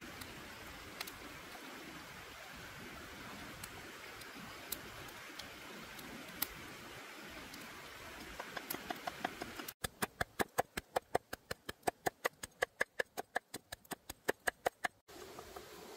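Wood fire crackling with occasional sharp pops. About ten seconds in, a knife scrapes shavings off a block of palm sugar on a stone in quick, even strokes, about seven a second, for about five seconds.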